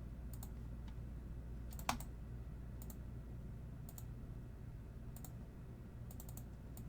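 Scattered light clicks at a computer, a few each second or so, with one sharper knock about two seconds in, over a steady low hum.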